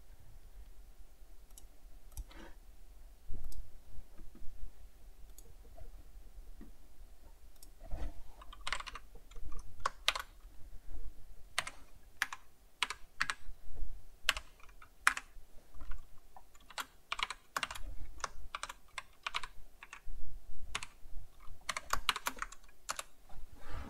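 Typing on a computer keyboard: irregular runs of keystrokes, sparse at first and quicker and thicker from about a third of the way in.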